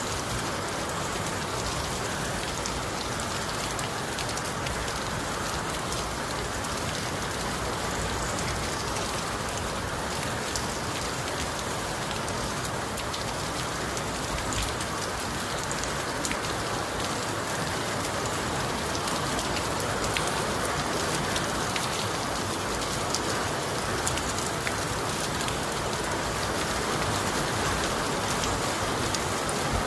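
Steady rain falling, an even hiss with scattered fine drop ticks, getting slightly louder in the second half.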